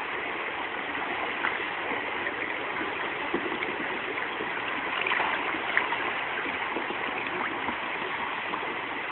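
Rushing river water, a steady wash of flowing current, with a few brief sharper splashes standing out now and then.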